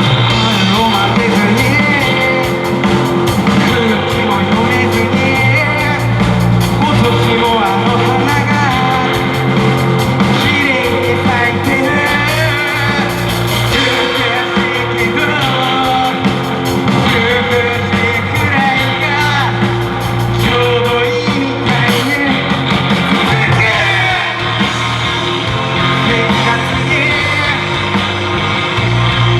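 Live rock band playing loud, steady rock music, with a voice singing over it.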